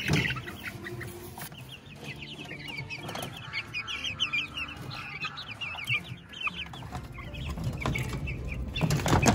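A brooder full of young chicks peeping continuously, many short falling cheeps overlapping. A handling knock sounds at the start and a louder one near the end.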